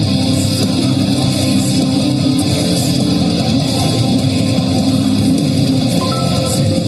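Guitar music playing steadily without a break.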